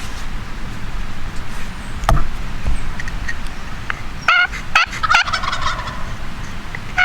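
A wild turkey gobbling: a short burst of loud, ringing notes about four seconds in, trailing off over the next second or so. There is a single knock about two seconds in.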